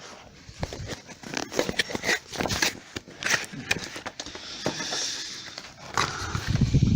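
Replacement car parts' packaging being opened by hand: a run of rustling, crinkling and clicking, with a louder low-pitched patch near the end.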